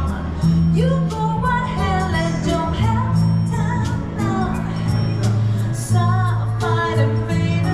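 Pop song with a female singer over a steady bass line and a regular beat.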